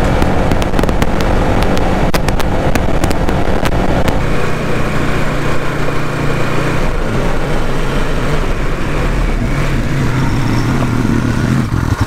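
ATV engine running while the four-wheeler is ridden, with wind noise on the microphone and scattered clicks and knocks in the first few seconds. The engine note settles into a steadier hum about four seconds in.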